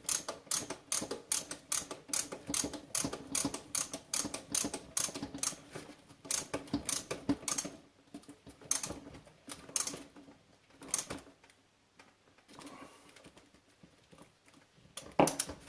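Sharp metallic clicks from a hand tap being turned to cut a thread in a drilled metal hole, coming about three or four a second for the first half and then scattered.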